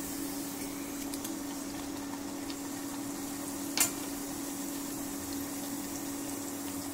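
Rice-flour vada deep-frying in hot oil in a steel pot, a steady sizzle with one sharp pop about four seconds in. A steady low hum runs underneath.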